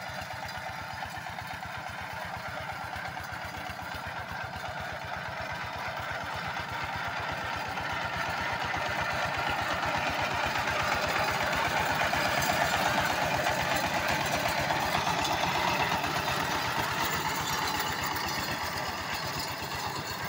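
A 14 hp single-cylinder diesel power tiller running steadily under load, with an even, fast firing beat, as it tills a rice paddy. It grows louder towards the middle as it passes close by, then eases off.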